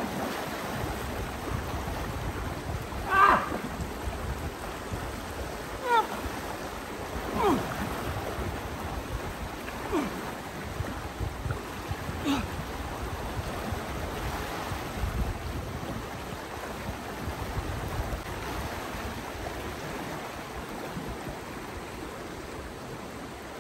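Shallow river rushing steadily over stones, with splashing as a man wades through the water and lowers himself into it. A few short, loud sounds that fall in pitch stand out in the first half.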